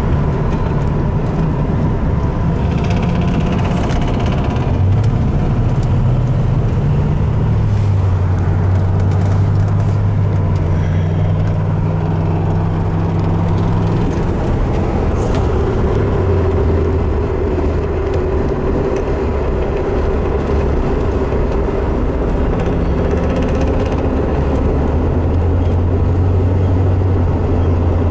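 Car engine heard from inside the cabin, a steady low drone whose pitch steps up and down a few times as the car speeds up and slows.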